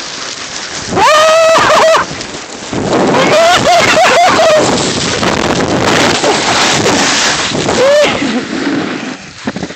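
Loud rushing of wind on the phone's microphone mixed with the scrape of riding fast over snow on a ski slope. A voice calls out over it, held for about a second starting a second in, and again briefly around four seconds in and near eight seconds.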